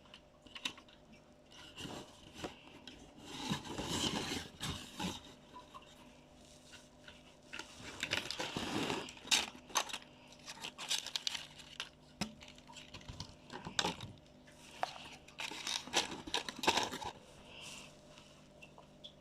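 Packaging being handled and torn open: irregular bursts of crinkling, rustling and tearing, with small clicks and taps in between.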